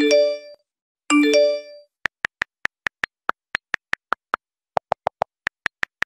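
Mobile phone ringtone: two ringing chime notes, then a run of short high beeps at about five a second, with a brief gap and a few lower beeps near the end.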